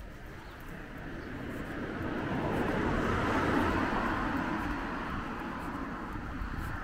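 A car passing by, its tyre and engine noise swelling to a peak about three seconds in and then fading away.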